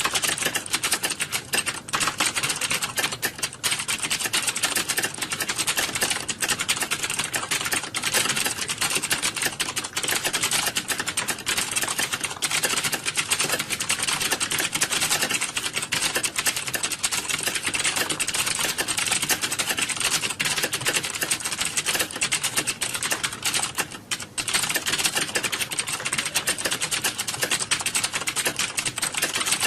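Fast, continuous typing on a computer keyboard, a dense run of key clicks with one short pause about 24 seconds in.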